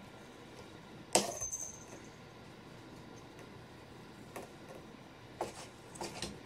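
A long-haired cat moving about inside a cardboard box: one sharp knock with a brief high ring about a second in, then a few softer taps and rustles against the cardboard near the end.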